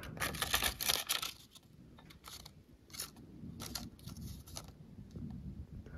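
A paper template rustling and scraping against an aluminum stator cover as it is pressed into place for a test fit. Short rustles and light clicks, mostly in the first second and a half, with a few more about three to four seconds in.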